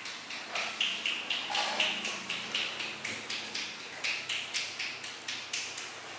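Fingertips scrubbing a shampoo-lathered scalp in quick rhythmic strokes, about three or four short wet rubs a second, stopping near the end.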